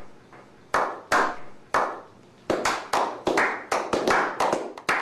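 Slow clap by a small group of men: single echoing handclaps about a second apart, quickening into rapid applause about two and a half seconds in.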